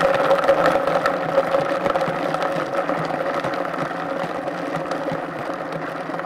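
Vitamix A3500 blender running continuously while chopping carrots: the motor's hum under a loud clatter of carrot pieces bumping around the container. The clatter slowly eases as the carrots are chopped finer.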